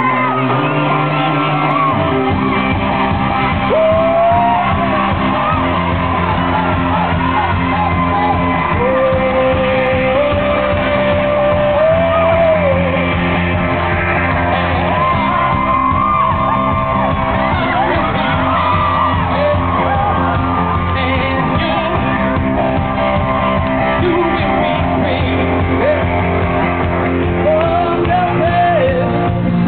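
Live rock band playing loud with a singer: electric guitar, bass and drums. The bass and drums come in about two seconds in.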